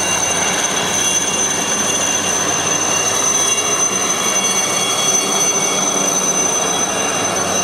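Light turbine helicopter flying with a load on a long line: a steady high-pitched turbine whine over a broad rushing engine and rotor noise.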